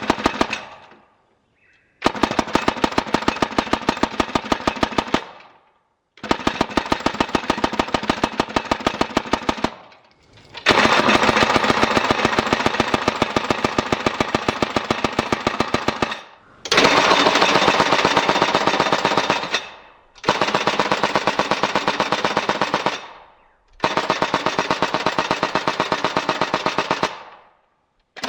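Shoei airsoft MG42 replica firing dry, without BBs: six long bursts of rapid, evenly spaced mechanical clacks from the cycling action, each burst three to five seconds long with short pauses between.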